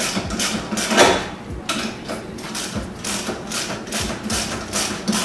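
Hand ratchet wrench swung back and forth on a suspension bolt, a burst of ratchet clicks with each stroke, about three strokes a second. A louder metal knock about a second in.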